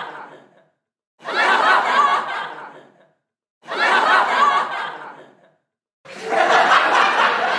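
Canned laughter sound effect. The same short burst of laughing repeats about every two and a half seconds, with a moment of silence between. About six seconds in, a longer, different stretch of laughter begins.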